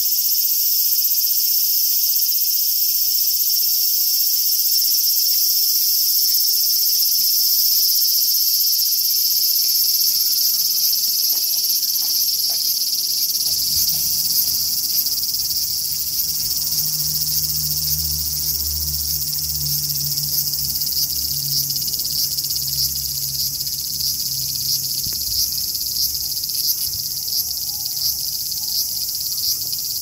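Large brown cicada (aburazemi) singing: a loud, continuous high sizzle. About halfway through, it takes on a regular pulsing of roughly one and a half beats a second.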